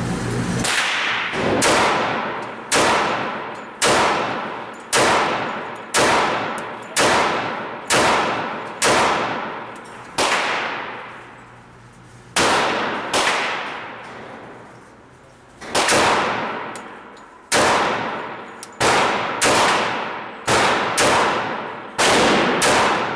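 Dan Wesson Razorback Heritage 1911 pistol in .45 ACP firing a long string of shots, mostly about one a second, with breaks of two to three seconds near the middle. Each shot rings out with a long echo, as in an indoor range booth.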